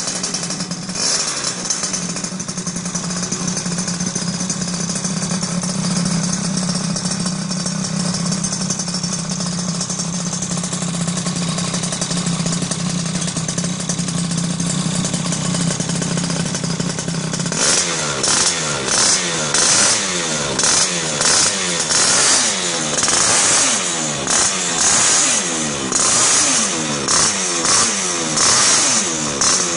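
Honda Dio SR two-stroke scooter engine with an aftermarket expansion-chamber exhaust, running at a steady idle, then revved in repeated quick blips from a little past halfway, the pitch rising and falling with each one.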